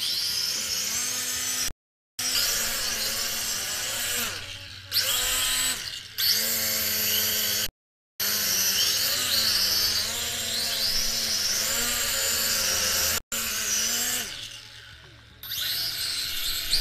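Toy quadcopter drone's small electric motors and propellers whirring, the pitch rising and falling as the throttle changes. The sound cuts out to silence briefly twice.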